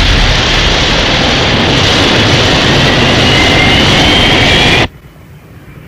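Thunderbird 2's jet engines blasting at launch from the ramp: a loud steady roar with a faint rising whine in it, which cuts off suddenly about five seconds in. A much quieter engine sound follows and slowly grows louder.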